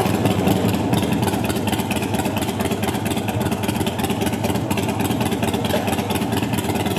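Motor vehicle engine running steadily with a rough, rapid pulsing rumble.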